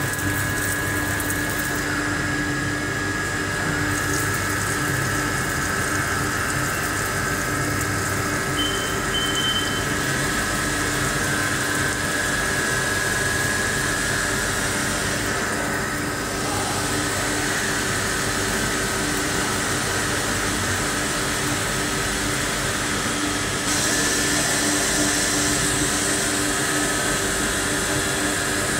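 Wire EDM machine running a cut, with working fluid flushing steadily from the upper wire guide onto the steel workpiece over a constant machine hum. Two short high beeps come about nine seconds in, and the hiss turns brighter near the end.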